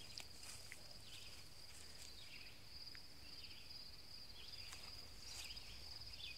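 Steady, faint, high insect trill from the surrounding grass and brush, with scattered soft swishes of grass and brush being walked through.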